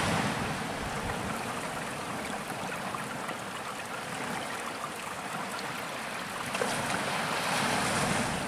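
Small waves breaking and washing up on a sandy beach: a steady rush of surf that swells at the start and again near the end.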